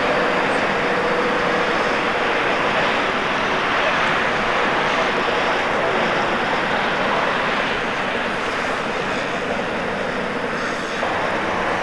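Steady, even drone of a heavy truck's diesel engine running at low speed as an articulated truck with a box trailer manoeuvres slowly through a cone course.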